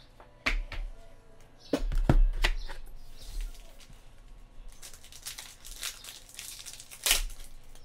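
A trading-card pack wrapper crinkling and tearing as it is opened, with cards being handled. A few sharp knocks and clicks in the first couple of seconds, then dense crackling of the wrapper from about five seconds in, loudest near seven seconds.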